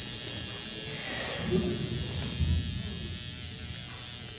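A steady electrical buzz, with low murmuring voices rising for a moment about halfway through.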